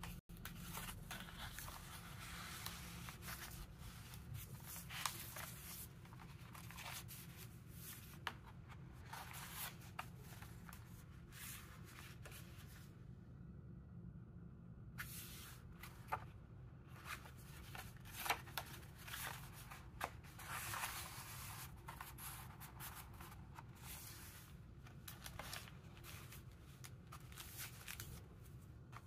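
Paper pages and cards of a handmade journal rustling and flapping as they are turned and handled, with small sharp taps and clicks, over a low steady hum.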